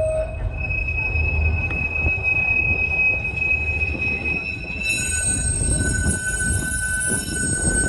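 Heritage tram's steel wheels squealing on the street rails as it runs. The steady high-pitched squeal shifts to a lower squeal about five seconds in, over a low running rumble.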